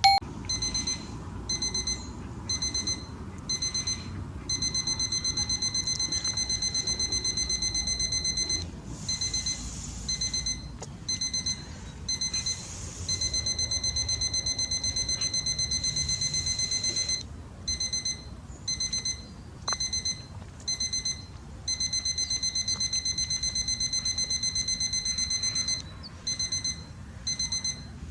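Digital alarm clock beeping at a high pitch, in short groups of rapid beeps that run together into longer stretches of continuous beeping. Underneath is the faint low crackle of a wood fire, with a single pop about two-thirds of the way through.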